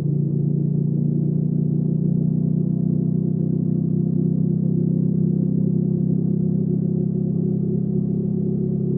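Hyosung GV300S Aquila's V-twin engine running at steady revs under way, a held, even engine note.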